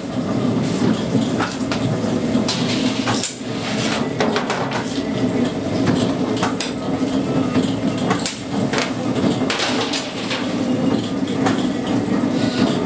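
Bakery dough moulding machine running steadily, its rollers and felt belt turning, with irregular clicks and knocks as dough pieces are rolled into logs.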